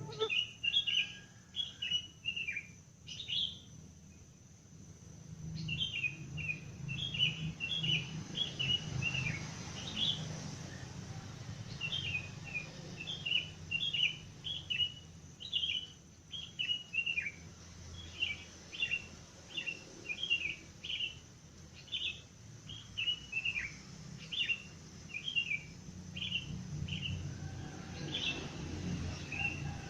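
Wild birds singing at dawn: runs of short, high, downward-sliding chirps repeated in quick succession, pausing briefly about four seconds in and again about eleven seconds in. A low steady rumble sits underneath.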